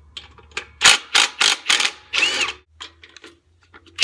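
Ryobi cordless impact driver with a long socket extension, run in a series of short hammering bursts, the last one longer with a whine that rises and falls, backing out the bolts of a Briggs & Stratton engine's front cover.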